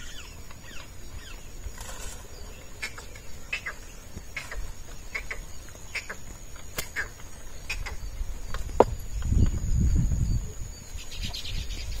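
Outdoor field ambience: birds chirping in short, quick, falling calls over a steady high-pitched insect drone, with a low rumble swelling about three-quarters of the way through.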